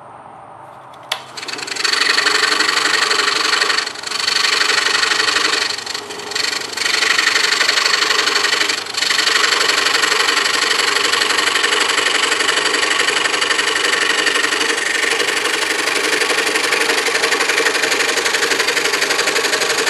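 DeWalt scroll saw switched on about a second and a half in, then running steadily with its blade reciprocating through a stack of boards. The noise dips briefly three times, near 4, 6 and 9 seconds.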